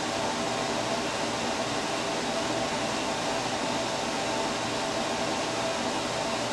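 Steady fan noise: an even hiss with a faint hum of a few steady tones, unchanging throughout.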